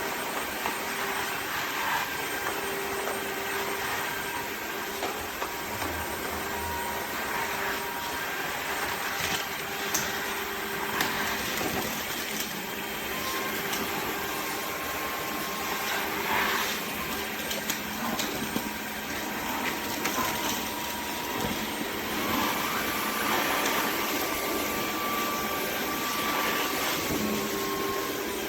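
Dreame H12 Pro cordless wet-dry vacuum running steadily in auto mode: a constant motor and suction noise with a faint steady hum, a few small clicks and a thin tone that shifts in pitch now and then.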